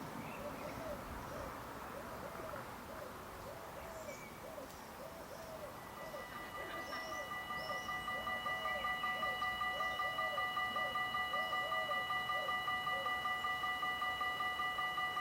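Dutch level-crossing warning bell starting up again about six seconds in, ringing at about four strikes a second. Before that, a bird's low call repeats over and over, with a few small chirps higher up.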